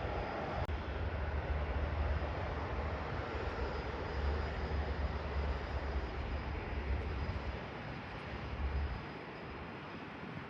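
Boeing 787-10 jet engines at takeoff thrust: a steady jet noise with a deep, uneven rumble that drops away about nine seconds in.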